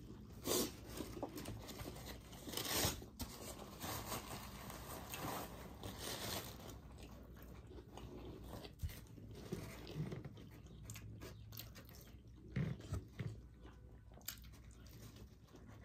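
A person biting and chewing French fries close to the microphone, with scattered soft crunches and mouth sounds.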